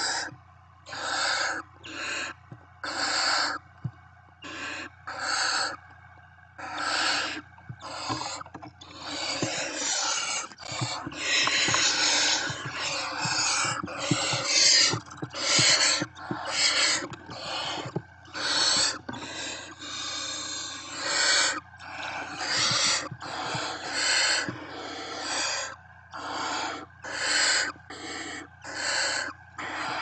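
Barn owl owlets giving their rasping, hissing begging calls, short hisses repeated about once a second. The calls of several chicks overlap into a denser, almost continuous run in the middle.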